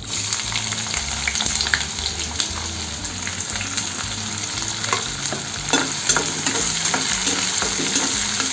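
Sliced onions tipped into hot oil with cumin seeds in a kadhai, sizzling hard the moment they hit the oil. From about five seconds in, a flat spatula scrapes and stirs them through the sizzling oil.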